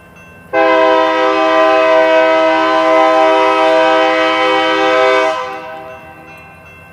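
Locomotive air horn sounding one long blast of about five seconds for the grade crossing, over the steady ringing of the crossing's warning bell.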